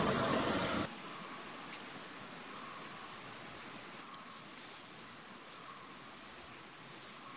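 Forest ambience: a louder rumbling noise cuts off abruptly about a second in, leaving a faint steady high hiss with a couple of thin, high bird-like chirps and a single small click.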